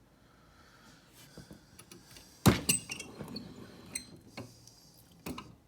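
Metal clinks and knocks of the freshly opened brass padlock and lockpicking tools being handled and moved. There is one sharp knock about two and a half seconds in, then a few lighter clicks.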